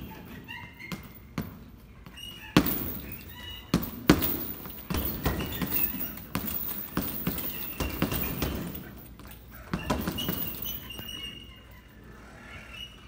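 Boxing-gloved punches landing on a hanging heavy bag: irregular thuds, a few single blows and then quick flurries from about two and a half seconds in, thinning out near the end. Short high squeaks come between the blows.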